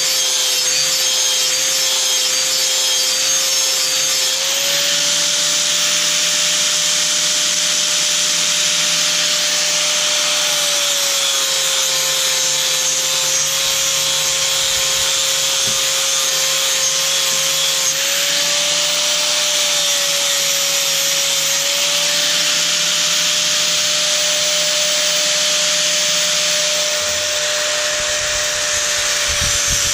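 Angle grinder with a 36-grit flap disc grinding the cutting edge of a steel lawn mower blade: a steady motor whine over a continuous hiss of abrasion. The whine's pitch shifts slightly a few times as the disc is worked along the edge.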